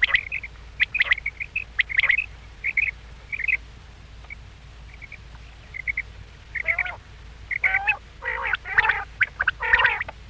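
Quail calling: quick groups of short high chirps, then a quieter spell, then from about six and a half seconds in several louder, harsher calls that fall in pitch.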